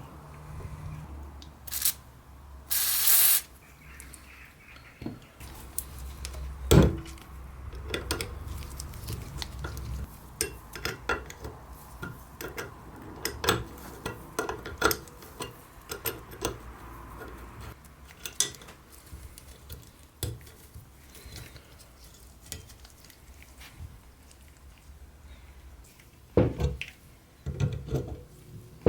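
Small metal blowtorch parts clinking and tapping as they are handled, with a short hiss about three seconds in and a louder knock about seven seconds in.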